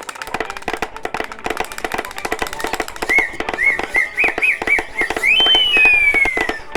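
Early cartoon soundtrack sound effects: a rapid run of dry clicks and taps, joined about three seconds in by a warbling whistle that wobbles up and down, then jumps higher and glides steadily down near the end.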